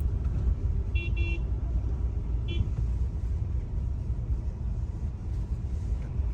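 Steady low road and engine rumble from inside a moving car, with a car horn giving two quick toots about a second in and one more short toot a second or so later.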